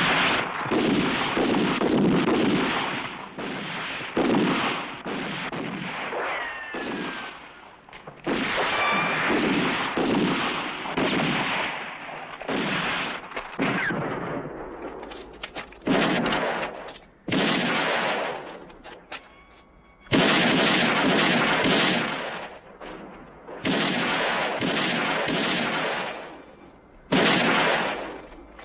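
Stylised spaghetti-western gunshots: a shootout of single shots and quick clusters, each shot ringing out in a long echoing tail. A few thin high whines trail some of the shots.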